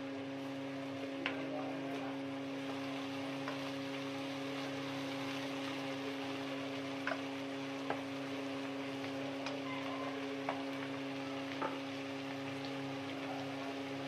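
Sliced onions and ginger-garlic paste sizzling in hot oil in a kadai, with a few sharp taps of a spatula against the pan. A steady hum runs underneath.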